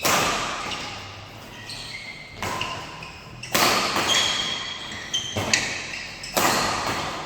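Badminton rally: several sharp racket strikes on the shuttlecock, each ringing away in the hall's echo, with short squeaks of shoes on the court between them.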